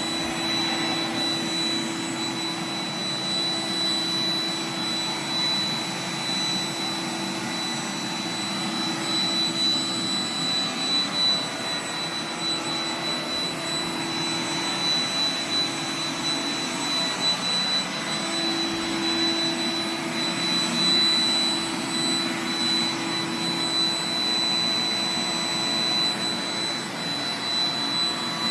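iRobot Roomba 980 robot vacuum running as it picks up confetti: a steady whir with a thin high whine over a low hum.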